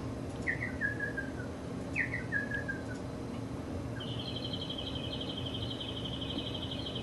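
Recorded bird calls played as a sound effect through computer speakers: two short chirping phrases that fall in pitch, then about four seconds in a long, rapid high trill lasting about three seconds.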